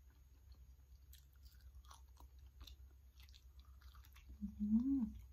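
Close-up wet chewing and small mouth clicks of someone eating soft durian flesh. About four seconds in comes a brief hummed "mmm" that rises and then falls in pitch.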